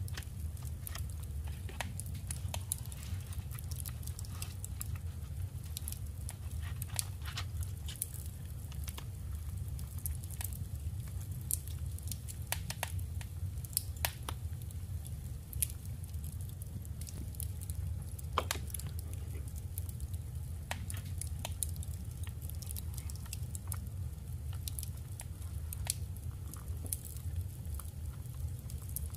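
Paper and scrapbooking materials being handled at close range: scattered small taps, crinkles and rustles at an irregular pace over a steady low hum.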